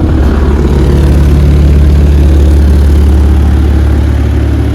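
Vibratory tumbler just switched on and running: a loud, steady low hum with a fine rapid buzz, heard through the soundproof box with its top left open.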